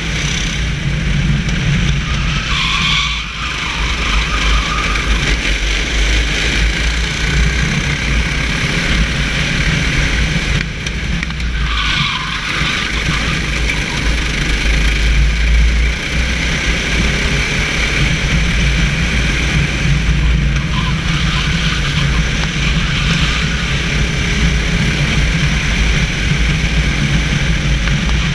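Onboard racing kart engine running at speed, heard from the kart itself with a steady rush of wind and tyre noise on the wet track. The engine dips briefly about three seconds in and again around eleven to twelve seconds in.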